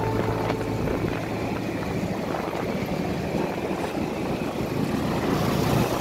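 Motorcycle engine running steadily while riding, with wind rushing over the microphone.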